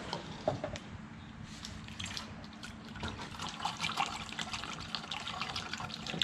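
Antifreeze being poured from a jug through a funnel into a car radiator, liquid running and splashing unevenly as the radiator is topped up with coolant.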